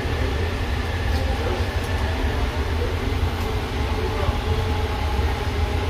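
JFK AirTrain car running along its guideway, heard from inside the car: a steady low rumble with even running noise over it.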